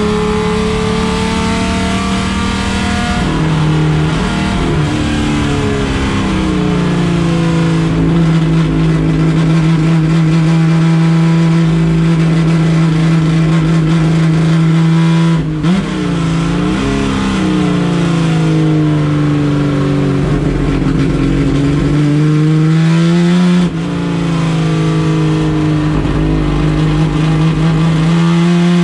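Chevrolet Opala race car engine running hard at high revs, its pitch sagging and climbing again several times, with two very short breaks in the sound about halfway and about three-quarters through.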